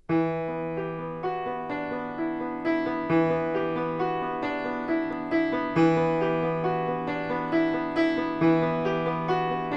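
Background piano music: gentle notes struck about twice a second over sustained low notes.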